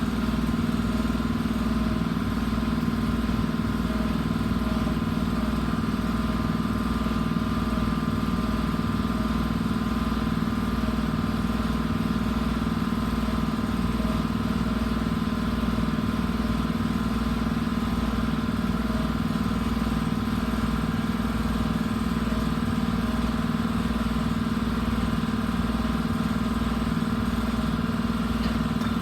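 An engine-driven machine running steadily at an even idle, with a low, regular pulsing beat and no change in speed.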